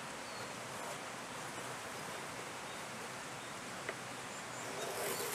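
Quiet, steady outdoor background hiss, with one faint tick about four seconds in and a brief soft scratching near the end as a pencil draws a reference line on the wood against a spirit level.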